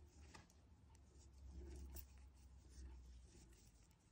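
Faint scratchy rubbing and a few light clicks of a double-pointed knitting needle working through yarn while i-cord stitches are knitted.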